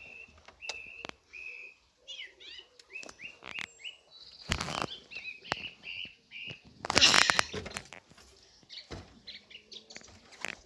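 Small birds chirping: runs of short, high, repeated chirps and some quick up-and-down notes. Two loud bursts of noise break in, about halfway through and again about seven seconds in.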